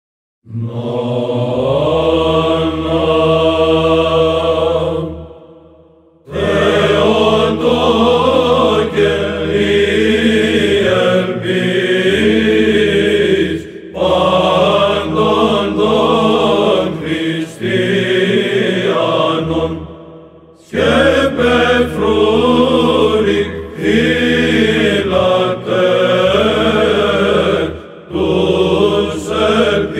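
Byzantine chant sung by a choir of church chanters: a melody sung over a held low drone (the ison). It begins about half a second in and pauses briefly twice.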